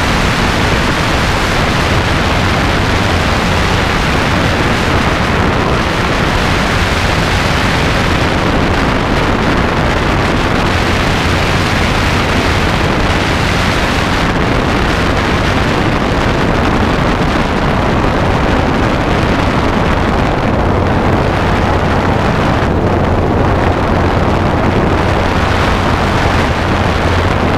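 Robinson R22 helicopter in flight: a steady low drone from its piston engine and rotors under heavy, constant wind rush on the microphone.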